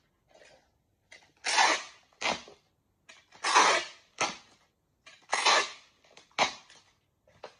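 Packing tape pulled off a handheld tape dispenser three times. Each pull lasts about half a second and is followed by a short, sharp tear as the tape is cut on the dispenser's blade.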